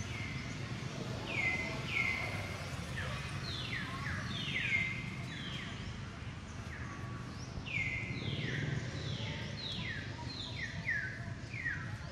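A run of short, high chirping calls, each sliding down in pitch, coming in clusters and then about two or three a second in the second half, over a steady low background hum.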